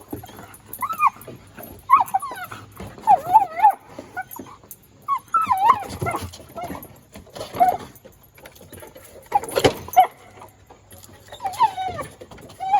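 Border collie whining and yipping in short, high calls that bend up and down in pitch, repeating every second or two, with a few sharp knocks in between, the loudest about ten seconds in.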